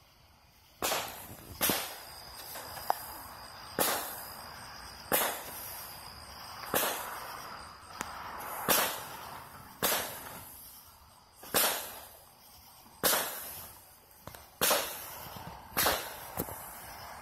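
Consumer fireworks firing a run of about a dozen sharp bangs, one every second or two, each fading out after the blast.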